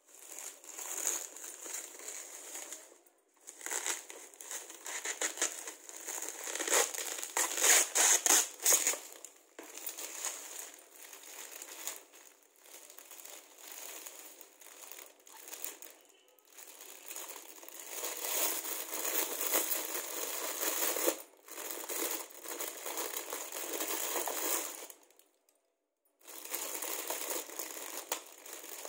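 Bubble wrap and clear plastic packaging crinkling as it is handled and pulled off a set of bangles, on and off with a few short pauses, loudest about a quarter of the way in.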